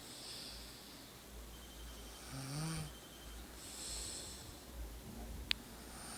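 A person snoring in sleep: a pitched snore about two and a half seconds in, with airy breaths either side. A short, sharp click comes about five and a half seconds in.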